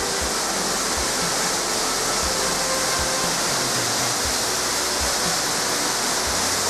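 An artificial indoor waterfall heard from near its top: a steady, unbroken rush of falling water.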